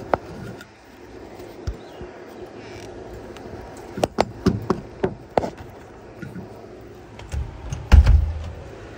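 Handling noise on a phone held close to a surface: a run of sharp clicks and knocks about four to five and a half seconds in, and a heavy thump near the end, over a steady low hum.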